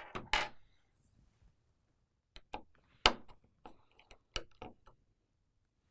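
Small sharp clicks and taps of repair tools working on an opened phone: a few at the start, then a quick irregular run, the loudest about three seconds in.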